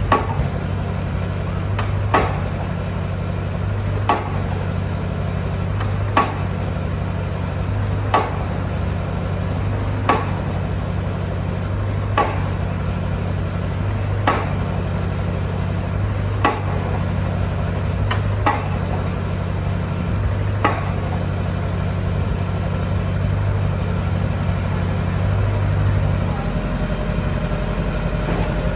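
Excavator engine running steadily, with a sharp knock or clank about every two seconds that stops after about twenty seconds; the engine note changes a few seconds before the end.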